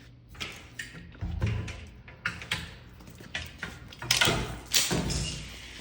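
Irregular knocks, thuds and rustling handling noises, the two loudest about four seconds in.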